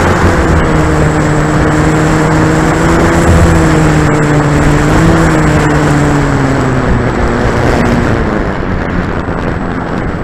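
Wind buffeting the microphone of a camera riding on an E-flite Corsair RC plane, over the steady hum of its electric motor and propeller. The motor's pitch wavers, then dips and fades out about three quarters of the way through as it throttles back, leaving mostly wind.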